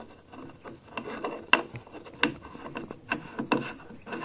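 A small clamp lever being threaded and turned onto the bolt of an indoor smart bike's handlebar height adjuster, in place of an Allen bolt: irregular small clicks and taps with rubbing between them.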